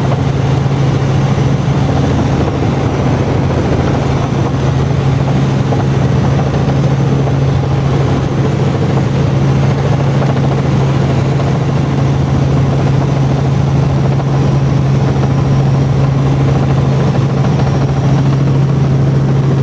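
Small helicopter in flight, heard from inside the cabin: a loud, steady drone of engine and rotor with a strong low hum that holds the same pitch throughout.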